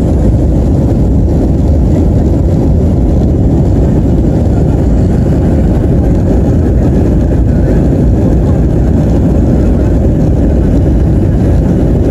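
Steady rumble of a Boeing 737-300's CFM56-3 jet engines heard inside the cabin as the plane rolls along the runway.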